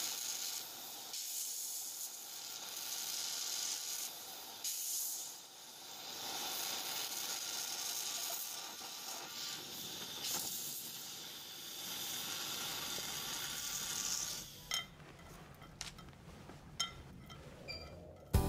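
Gas torch flame hissing steadily as it heats metal in a crucible and over the ingot mould during the pour. The hiss stops about fourteen seconds in, followed by a few short metal clicks and taps of tweezers and tools.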